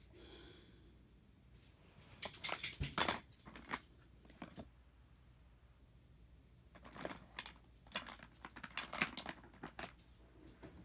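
Small hard objects clicking and clinking together in two spells of handling, the first about two seconds in and the second over the last few seconds.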